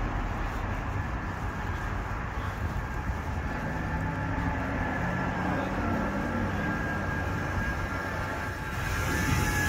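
Steady low rumble of street traffic and idling vehicles, with a high hiss growing louder near the end.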